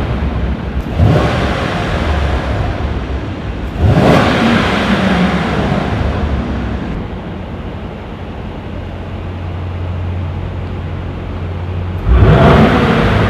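Mercedes-AMG E 63 S twin-turbo V8 with an Armytrix aftermarket exhaust, revved in sharp surges about a second in and about four seconds in, then dropping to a lower, steadier note. It is revved hard again near the end.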